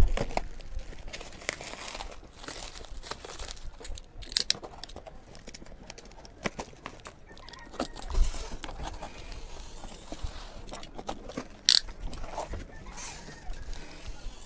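Rustling and crinkling of album packaging being handled and opened, with scattered clicks and light taps.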